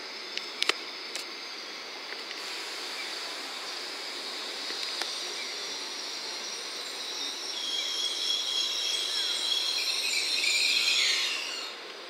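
N700S Shinkansen train rolling slowly into a platform. A high thin whine and squeal grows louder over the second half, then slides down in pitch and fades near the end as the train slows.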